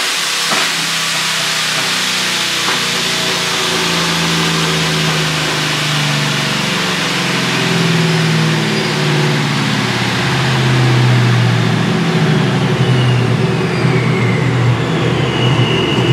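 Chevrolet Silverado's Procharger-supercharged 5.3-litre V8 running under load on a chassis dyno, growing louder toward the middle. Near the end it winds down, with a high whine falling in pitch as the dyno run is stopped.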